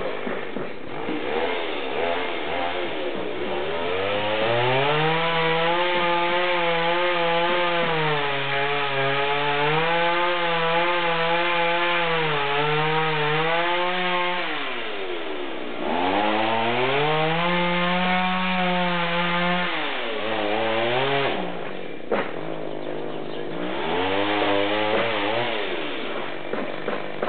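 Two-stroke chainsaw revving up and cutting wood: the engine climbs to a high, wavering pitch and holds it for about ten seconds under load, drops back to idle, then revs up and falls away several more times.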